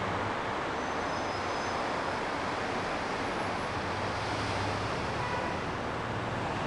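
Steady waterfront ambience: an even rush of noise with a low engine hum underneath, likely from the departing ferry.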